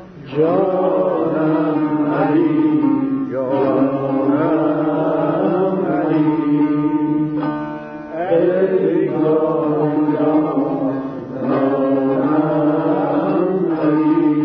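Tanbur playing with a male voice singing in long, wavering phrases over the instrument's steady drone.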